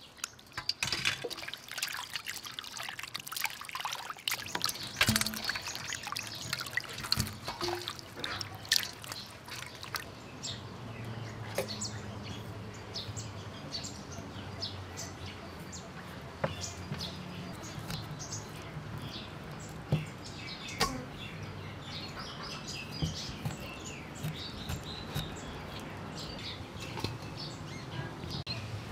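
Water sloshing and splashing as eels and catfish are rubbed clean by hand in a steel bowl, then scattered knife knocks on a wooden cutting board. Birds chirp in the background.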